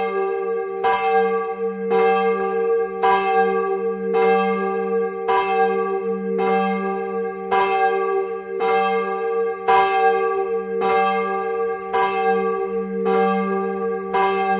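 Church bells ringing, a stroke about once a second, with the bells' tones humming on steadily between strokes.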